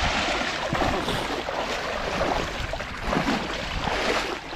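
Shallow river water splashing and sloshing around the wading fishermen and their cast net.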